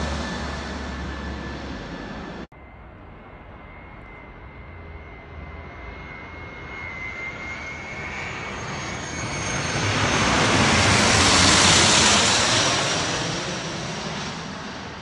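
Business jets flying low overhead on landing approach. One jet's turbofan rush fades and breaks off suddenly about two and a half seconds in. Then the next jet's high whine and rush build to a loud peak about eleven seconds in and begin to fade.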